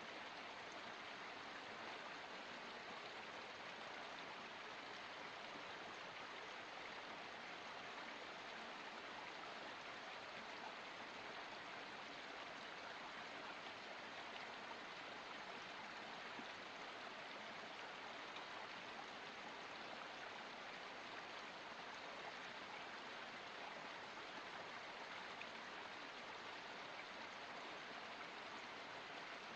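Small forest stream flowing, a steady, even rush of running water with no change throughout.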